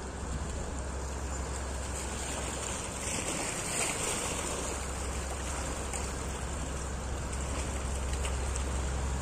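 Diesel engine of a motor barge passing close by, a low steady drone that grows slowly louder as the stern draws level, over water churned by its wash sloshing against the bank, with a brief rush of splashing about four seconds in.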